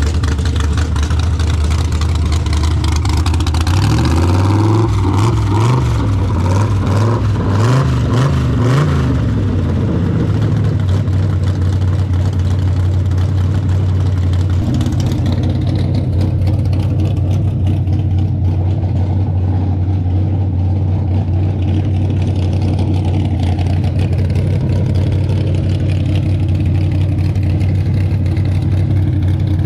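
1942 pickup's engine running through custom stainless steel headers, revved up and down several times between about four and nine seconds in, then running steadily.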